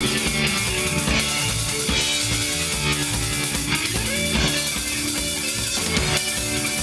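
Live rock band playing through amplifiers: electric guitars over a drum kit.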